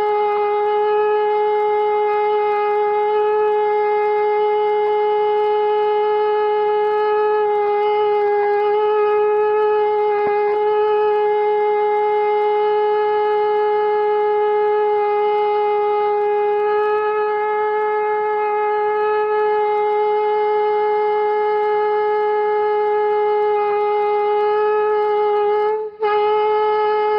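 Conch shell (shankh) blown in one long steady note, with a row of overtones above it. The note breaks off for an instant about a second before the end, then carries on.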